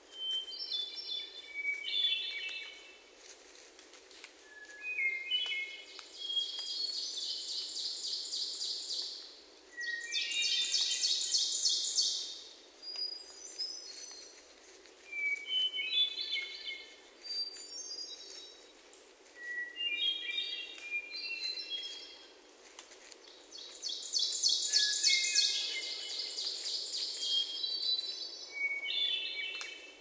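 Hermit thrush singing, repeating short flute-like phrases every few seconds at shifting pitches. Another bird's rapid, buzzy trill comes in three times, each lasting about three seconds and louder than the thrush.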